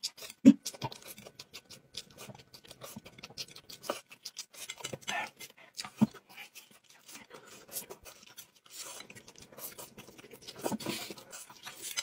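Small handling sounds at a table while eating and drinking: a string of soft clicks, taps and scrapes, with a sharp knock about half a second in and another about six seconds in.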